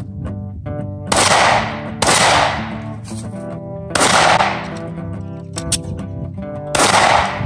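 Four 9mm pistol shots from a P80-frame Glock 17: two about a second apart starting about a second in, a third about two seconds later, and a fourth near the end. Background music plays under them.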